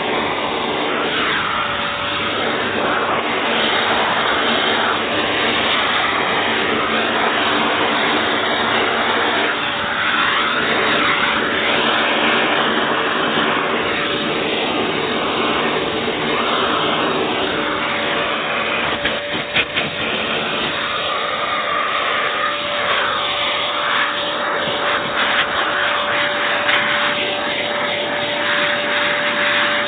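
AEG Airmax AMM6216 2100 W vacuum cleaner running: a loud, steady rush of air over a constant motor whine, the airflow note swelling and easing now and then. A few clicks come about two-thirds of the way through.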